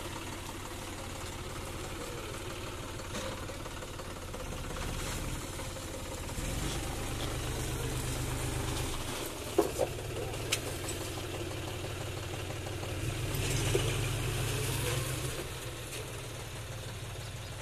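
John Deere 5105 tractor's three-cylinder diesel engine running at low speed while the tractor manoeuvres. The engine picks up twice, once about six seconds in and again about thirteen seconds in, and there are a few sharp knocks about ten seconds in.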